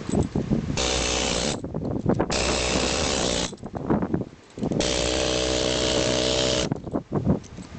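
Pneumatic air hammer chiselling excess concrete off a foundation, run in three bursts of one to two seconds each, with irregular knocks and clatter between them.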